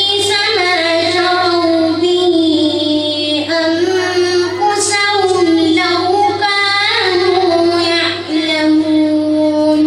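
A boy reciting the Quran in melodic tajweed (tartil) style, a child's voice drawing out long held notes with gliding ornaments between them, and settling into one long steady note near the end.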